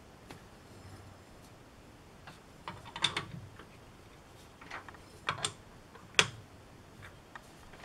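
Sharp metal clicks and clinks from adjusting the jaws of a four-jaw lathe chuck to true up a welded shaft. There are a few clicks about three seconds in, two close together a little after five seconds, and a single loudest one just after six seconds.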